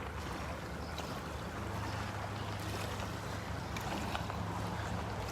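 Outdoor ambience: a steady low rumble under a faint hiss.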